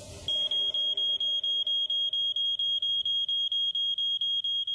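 Smoke alarm sounding: a loud, shrill, high-pitched tone pulsing about four times a second. It starts a moment in, signalling smoke in the room.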